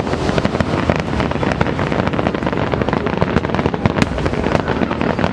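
Closing barrage of an aerial fireworks display: a dense, unbroken stream of crackles and bangs, many bursts a second.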